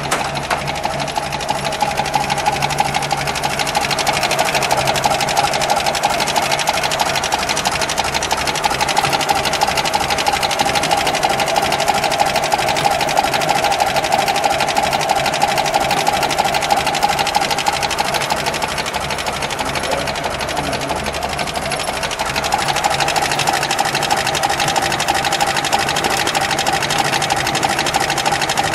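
1936 Alvis engine idling steadily with a busy mechanical clatter, heard close up in the open engine bay.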